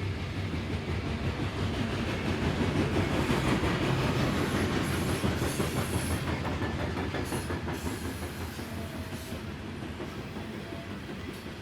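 Norfolk Southern coal train's freight cars rolling past on the rails. The noise swells about three to five seconds in, then eases.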